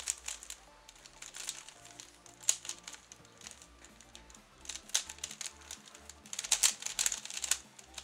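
Plastic 3x3 Rubik's cube being turned fast during the F2L stage of a solve: a rapid clatter of clicks in flurries, busiest near the middle and in the last second and a half. Quiet background music underneath.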